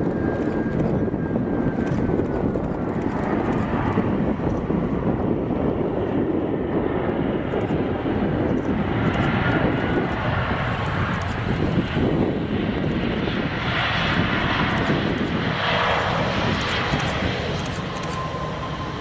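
Airbus A319 touching down and rolling out with its ram air turbine deployed: steady jet engine noise and rushing air. A thin whistle falls slowly in pitch over the first few seconds, and a hissing roar swells from about nine seconds in before easing near the end.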